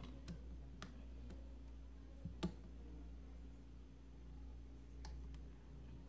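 Scattered small, sharp clicks and taps, about six, with the loudest about two and a half seconds in, from fingers and tools handling an opened Oppo A39 phone's frame and parts while its volume-button flex cable is being fitted. A steady low hum runs underneath.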